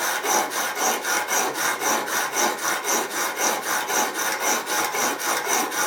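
Steel vegetable-peeler blade rubbed back and forth on the fine 50/40 grit side of a diamond sharpening bar, in quick even strokes at about five a second. The bevel is being ground at the factory angle.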